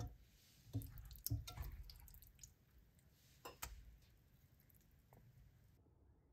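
A serving spoon knocks and scrapes against an enamelled cast-iron pot and a ceramic bowl as thick chickpea curry is spooned out, giving several light clicks in the first four seconds. The sound drops to near silence after about six seconds.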